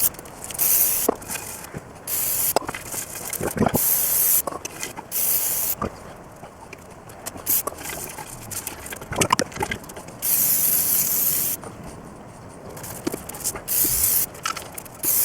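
Aerosol degreaser sprayed onto a diesel intake manifold in about a dozen short hissing bursts, with one longer burst about two-thirds of the way through. Light knocks and clicks of handling fall between the sprays.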